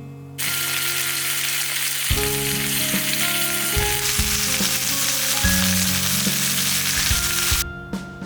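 Meat sizzling loudly in a hot pan. The sizzle starts abruptly about half a second in and cuts off sharply near the end.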